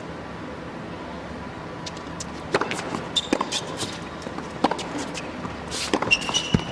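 Tennis racquets striking the ball in a serve and baseline rally on an indoor hard court: sharp single hits about a second or so apart, starting a couple of seconds in after a quiet arena hush. A few short, high shoe squeaks sound between the hits.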